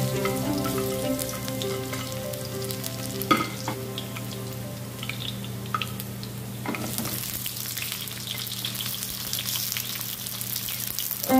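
Chopped garlic sizzling in hot oil in a wok, with a few short knocks. The sizzle grows fuller about seven seconds in as chopped white onion goes into the pan.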